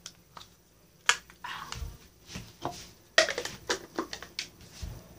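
Scattered light clicks and short rustles from a cup and drinking straw being handled.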